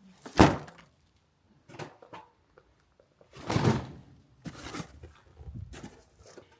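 A sharp thump about half a second in, followed by several shorter knocking and rustling noises of things being handled.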